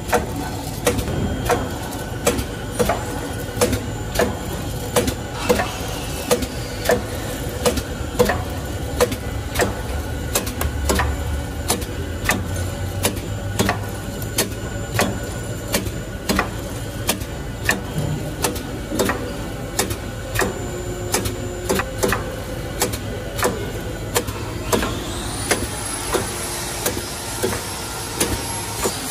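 Pen-refill silicone oil filling machine running: its chain conveyor and pneumatic filling heads clack at a steady pace, roughly one to two clacks a second, over a steady machine hum. A hiss comes in near the end.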